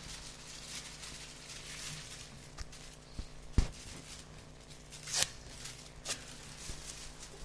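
Rustling and a few scattered knocks and clicks over a steady low hum, the loudest knock about three and a half seconds in.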